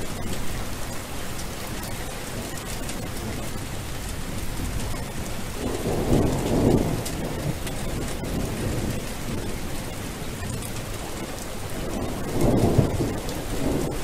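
Steady rain falling, with two low rumbles of thunder: one about six seconds in and another near the end.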